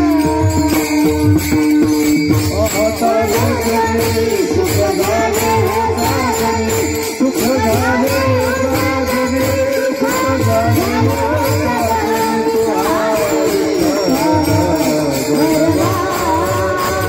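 Marathi Warkari devotional bhajan (panchapadi) sung by a woman lead with a chorus, over a steady harmonium drone, with pakhawaj barrel-drum beats and many pairs of small brass hand cymbals (taal) clashing in a steady rhythm.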